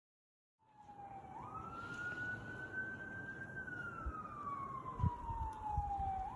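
Emergency-vehicle siren on a slow wail. It comes in shortly after a moment of dead silence, steps up in pitch, holds, then slowly falls over a few seconds and jumps back up near the end, over a faint steady rush.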